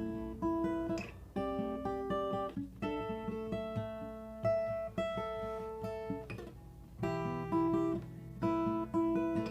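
Acoustic guitar playing a chord progression, each chord picked and let ring, with a new chord about every second.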